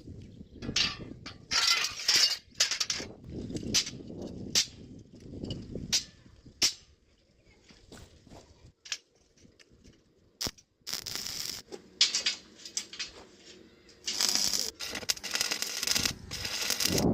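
Metalworking in a welding shop: irregular knocks and clinks of iron pieces being handled. A steady crackling hiss takes over for the last few seconds.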